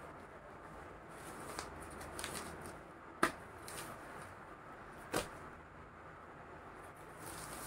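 Soft rustling of cloth being handled, with two sharp knocks about two seconds apart.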